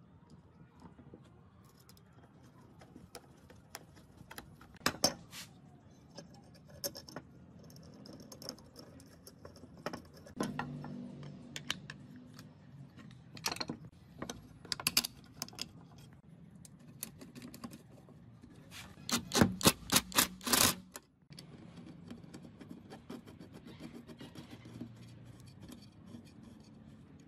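Metal parts of a circular saw being handled and fitted together by hand: scattered clicks and clinks of small aluminium and steel parts. About two thirds of the way through comes a quick run of about eight sharp clicks within a second and a half, the loudest sound.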